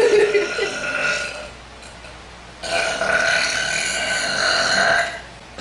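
A girl letting out huge burps. A loud burp at the start trails off within about a second, then a long, drawn-out burp follows from about two and a half seconds in, lasting some two and a half seconds.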